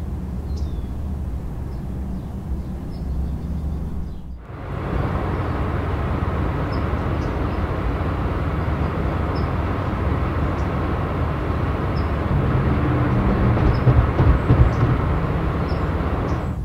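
Car sound effect: a low engine hum, which dips briefly about four seconds in and then becomes a steadier driving sound of engine and road noise. It grows louder and more uneven near the end, with faint high chirps over it.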